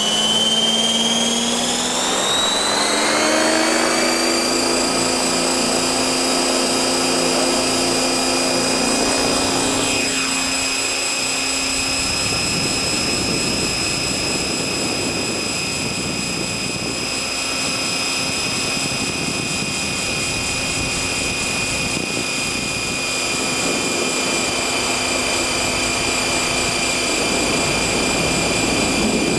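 Electric RC helicopter, a stretched T-Rex 600 on 12S with 690 mm blades, heard from a camera slung beneath it. Its motor and drivetrain whine rises in pitch for the first few seconds as it spools up. The whine then holds steady and high as the helicopter lifts off and climbs, with a rushing noise taking over the low end from about twelve seconds in.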